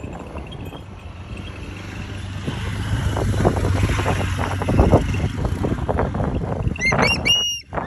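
A motor vehicle running close by, its engine rumble swelling through the middle and holding, then dropping away near the end. Near the end, a quick series of short, high-pitched bird calls.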